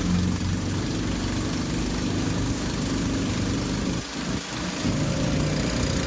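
An engine running steadily with a low hum over a hiss of noise, dipping briefly about four seconds in.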